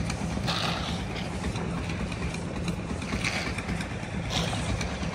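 An engine running steadily at an even speed, with a few brief noises on top of it now and then.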